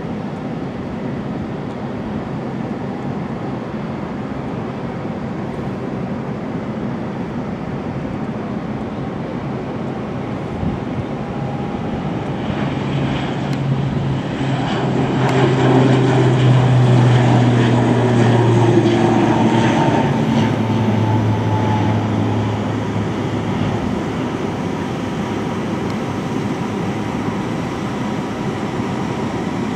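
ATR 72-600's twin Pratt & Whitney PW127M turboprops at takeoff power. A distant rumble swells into a loud, deep propeller hum as the aircraft comes past and lifts off. The hum drops slightly in pitch after passing, then fades as it climbs away.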